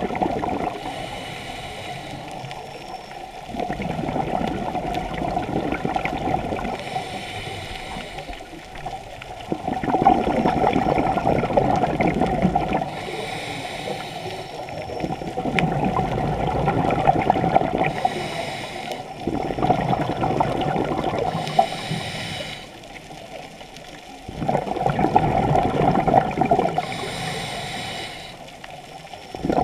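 Scuba diver breathing through a regulator underwater: a short hiss on each inhale, then a longer, louder rush of bubbling exhaled air, repeating over several breaths.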